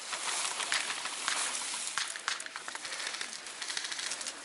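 Rustling and crackling of grass and brush close to the microphone, a steady hiss broken by many irregular small crackles.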